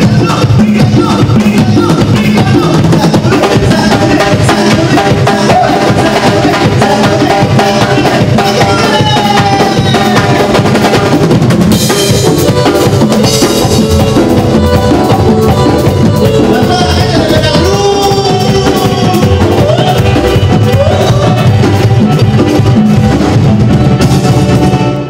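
Loud instrumental music without singing: a steady drum-kit beat with bass drum and snare under melodic instrument lines.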